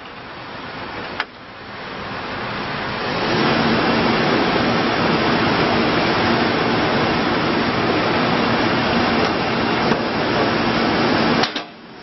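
Case 580N backhoe loader's 84-hp diesel engine running under hydraulic load while the backhoe boom and bucket are worked, building over the first few seconds to a steady drone. A sharp click about a second in, and the sound drops away suddenly just before the end.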